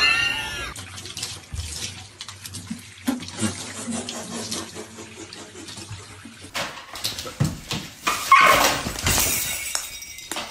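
Bathtub tap running, a steady rush of water through the second half, with a short loud call about eight seconds in. Before that, scattered knocks and faint sounds.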